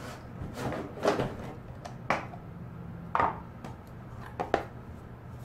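Packaging being handled during an unboxing: four or five short scrapes and knocks about a second apart, over a faint steady low hum.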